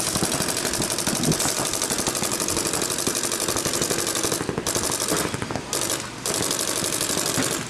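Paintball markers firing in rapid, continuous streams, a fast rattle of shots with brief breaks about four and a half, five and a half and six seconds in.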